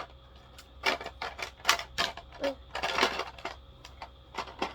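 Irregular clicks and taps of small plastic art supplies being handled, about a dozen in a few seconds.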